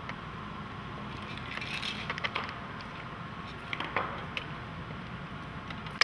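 Small clicks and rattles of the parts of a Kodak slide projector being handled and opened up, in two short clusters about two and four seconds in, over a steady low hum.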